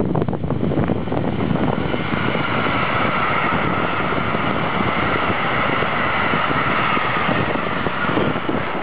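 Freight train hauled by an electric locomotive passing close, with a string of silo wagons rolling by. The wheels make a steady rumble on the rails, and a hum on top of it builds about two seconds in and holds until near the end.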